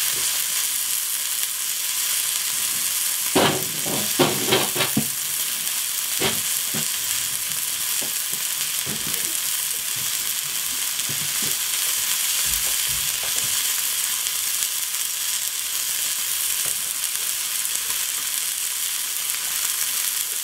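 Burger patty frying with a steady sizzle. A short cluster of knocks sounds about three to five seconds in, and another knock near six seconds.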